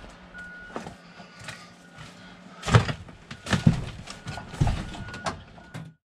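Heavy equipment's diesel engine running with a backup alarm beeping at about one beep a second. From about three seconds in, several loud thumps and clatters are the loudest sounds.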